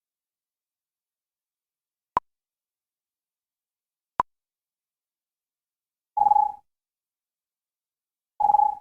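Synthesized computer alarm sound effects separated by silence: two short ticks about two seconds apart, then two short single-pitched electronic beeps, each under half a second, also about two seconds apart.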